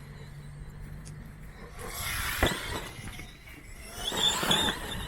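Electric radio-controlled monster truck driving in two bursts, its motor whining high as it speeds up, with a sharp knock about two and a half seconds in.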